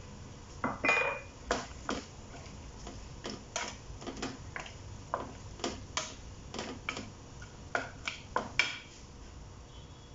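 Wooden spatula knocking and scraping against a metal wok while stirring whole shrimp into a thick sauce: irregular clacks about one or two a second, with a ringing clink about a second in, stopping near the end.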